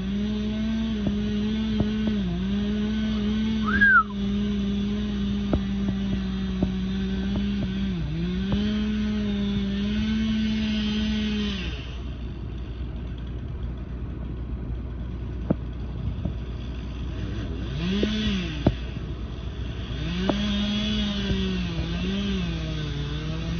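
Chainsaw running at high revs in a felling cut through a large spruce trunk, its pitch dipping again and again as the chain loads in the wood. About halfway through it drops back to a lower, quieter run, revs briefly, then goes back to cutting.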